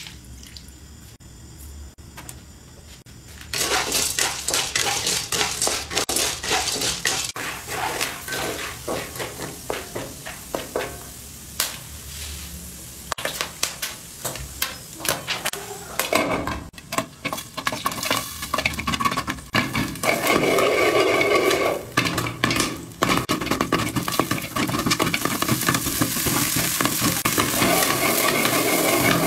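Corn kernels frying in hot oil in a wok, starting after a few seconds of quiet: a sizzle with dense rapid clicks, the kernels being stirred against the pan. Near the end the kernels are popping under a glass lid while the wok is shaken.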